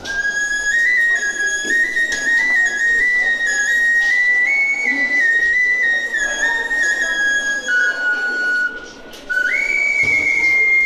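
A busker playing a slow, stepwise melody of pure, flute-like notes on a small wind instrument held in cupped hands at the mouth, an ocarina-type whistle. Near the end the tune breaks off briefly, then slides up into a long high note.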